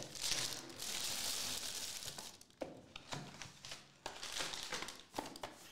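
Cardboard trading-card box being opened and its foil card pack handled: a crinkling rustle for about the first two seconds, then a few light taps and knocks.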